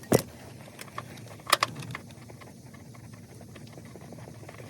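A few sharp metallic clinks and knocks from hand tools and seatbelt bolt hardware being handled: the loudest just after the start, another about a second and a half in, then only a low steady background.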